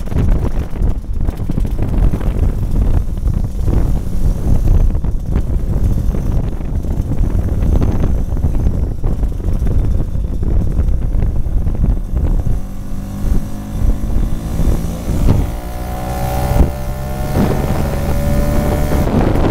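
Wind buffeting the microphone of a moving scooter, over a motor scooter engine running. In the second half the engine note rises steadily as the scooter accelerates.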